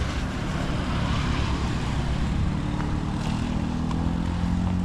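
A motor vehicle engine running steadily, its pitch rising slightly, over a noisy rush.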